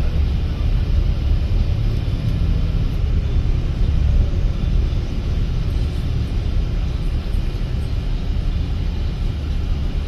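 Steady low rumble of engine and road noise inside the passenger cabin of an Irizar i6S Efficient coach under way.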